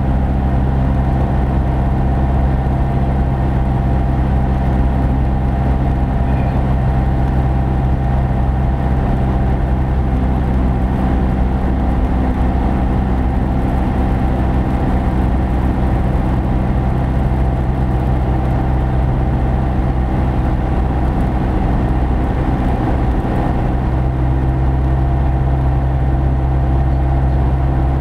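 Cessna 172P's four-cylinder Lycoming engine and propeller running steadily on approach to landing. It is heard as an even, loud drone inside the small cabin.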